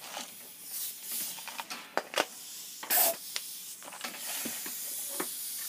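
Pneumatic pop rivet gun being handled on its compressed-air line: scattered sharp metal clicks and knocks, and a short loud burst of air hiss about three seconds in. A faint steady air hiss follows.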